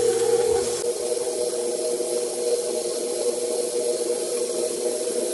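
KitchenAid stand mixer running at a steady speed, its motor humming as the flat beater churns raw ground lamb with onion, garlic and herbs into a smooth paste.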